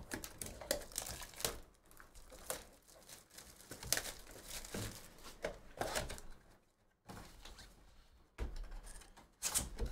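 Plastic wrapping crinkling and tearing as a sealed box of trading cards is unwrapped, along with cardboard box handling. It comes as a run of irregular crackles, with a short lull about seven seconds in.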